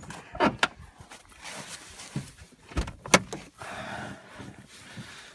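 A few sharp knocks and clicks, the loudest about three seconds in, followed by a short rustling noise. These are handling sounds around a car.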